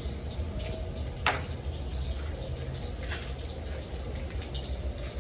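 Onion, garlic and pepper frying in hot oil in a pot over a wood fire: a steady sizzle, with a single sharp clink about a second in.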